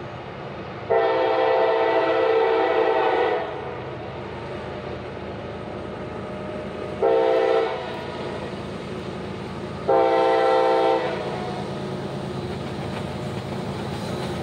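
Diesel freight locomotive's air horn sounding three blasts as the train approaches: a long one about a second in, a short one about six seconds later, and another a little longer a few seconds after that. A low steady rumble runs underneath.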